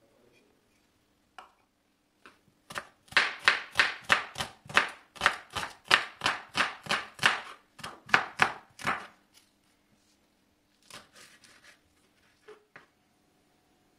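Chef's knife chopping an onion on a wooden cutting board: a quick, even run of strokes, about three or four a second, for some six seconds. A few scattered cuts follow near the end as a green chili is sliced.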